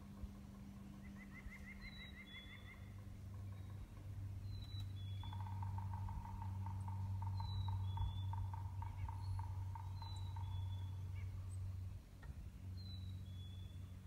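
Woodland birdsong: a clear two-note whistle, high then a little lower, repeated every two to three seconds. A short fast trill comes near the start, and from about five seconds in a long rhythmic series of lower calls.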